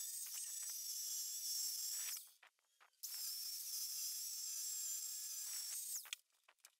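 Oxy-fuel gas torch flame hissing steadily while brazing copper. It breaks off for about a second a little after two seconds in, then stops again near the end.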